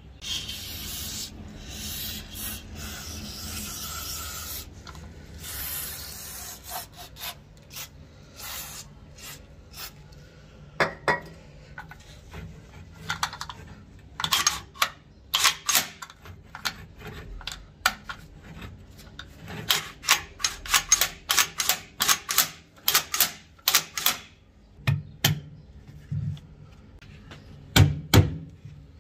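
Metal parts of a rusty light-machine-gun receiver being worked by hand: a stretch of rubbing and scraping, then a long run of short, sharp metal clicks and scrapes. Near the end come a few dull knocks.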